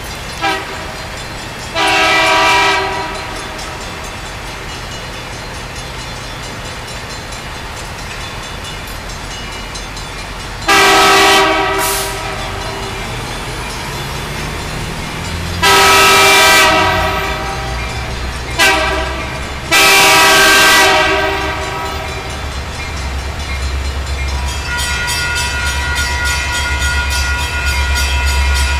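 Air horn of an approaching ex-Santa Fe GP60M diesel locomotive leading a freight train, sounding a series of blasts, mostly long with a couple of short ones. Under the horn a low rumble of the train grows steadily louder through the second half as it draws closer.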